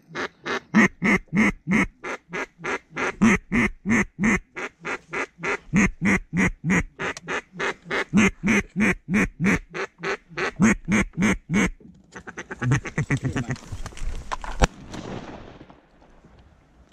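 Mallard duck call blown in a long, even series of loud quacks, about three a second, then switching to a fast rolling chatter of a feed call about twelve seconds in. A single sharp crack near the end.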